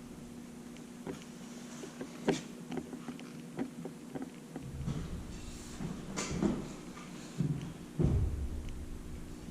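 Scattered light clicks, taps and knocks of roof rack parts being handled and fitted, with a few duller thumps about halfway through and again near the end.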